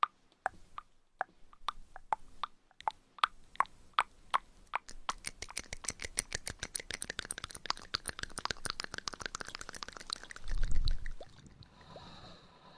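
ASMR mouth sounds close to the microphone: wet clicks and pops, slow at first, then a fast run of rapid clicking from about halfway. A short low rumble near the end.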